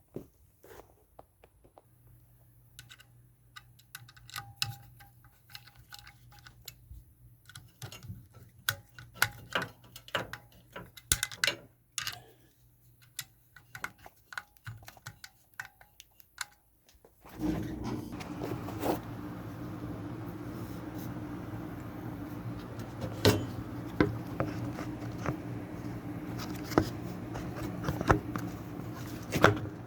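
Scattered small clicks, taps and knocks of screws and metal parts being handled and fitted while a washing machine motor is fastened in. About seventeen seconds in, a steady low hum starts suddenly and runs on under the clicking.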